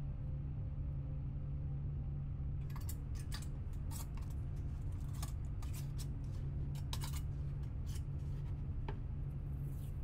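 Scattered light clicks and taps of metal lids being handled and set onto glass mason jars, starting a few seconds in, over a steady low hum.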